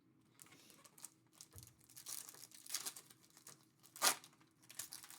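Foil trading-card pack wrappers crinkling and tearing as packs are opened and cards are handled, faint, with one sharper crackle about four seconds in.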